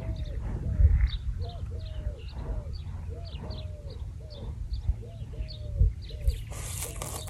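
A bird calling over and over in short notes that rise and fall, several a second, over a low rumble of wind on the microphone; a loud rushing noise comes in near the end.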